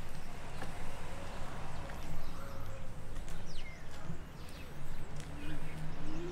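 Small birds chirping over a steady low rumble, with a pigeon starting to coo near the end in repeated low arched calls.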